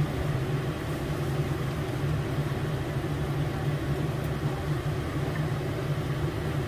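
Steady low hum and whir of a running kitchen appliance, unchanging throughout.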